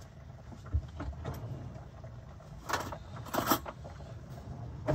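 Metal clinks and knocks of kitchen utensils against a cooking pot on a gas stove, with two brighter clinks a little under a second apart about three seconds in, over a steady low hum.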